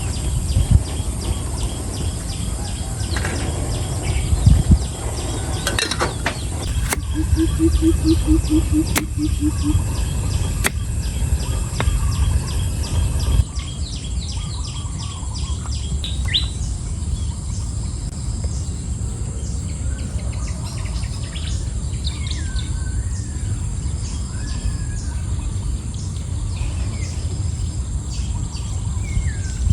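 Outdoor birds chirping and calling in short rising and falling phrases, over a steady high insect-like whine and a constant low rumble. About seven seconds in, a short run of about eight quick low pulses is heard, and there are a few sharp clicks in the first half.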